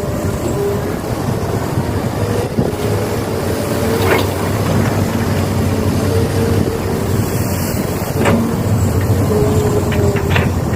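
Radio-controlled model excavators and dump trucks working: a steady mechanical hum with an on-and-off whine and a few sharp clicks, the clearest about four and eight seconds in.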